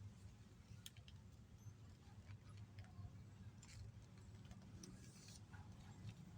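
Faint handling of a sheet of paper being folded: scattered soft ticks and brief rustles over a low steady hum.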